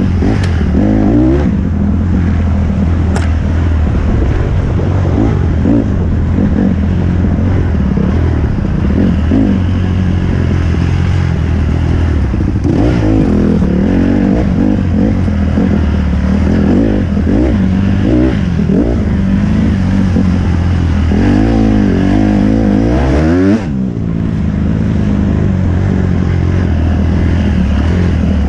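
Dirt bike engine heard from on board while riding, revving up and down over and over as the throttle is worked. The engine note drops briefly about 23 seconds in.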